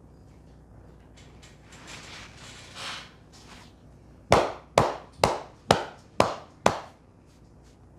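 Six sharp hand slaps, about two a second, the percussive strokes of a head massage, after a soft rubbing swish of hands on hair.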